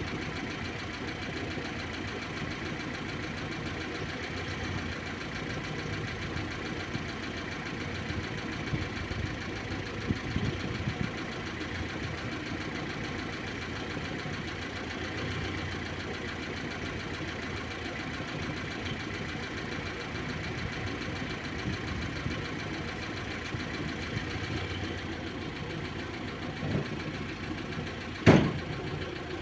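Carburetted VAZ-2101 (Lada 'kopeyka') engine running steadily during a short, gentle drive, not yet fully warmed up. A single sharp thump sounds near the end.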